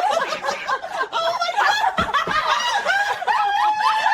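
Laughter: snickering and chuckling in high, overlapping voices.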